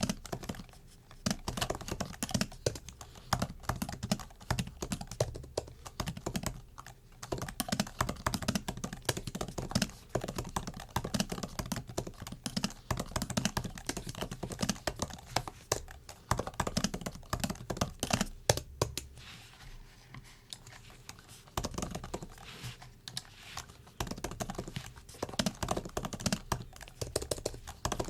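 Typing on a MacBook's built-in keyboard: rapid runs of light key clicks with short pauses between bursts.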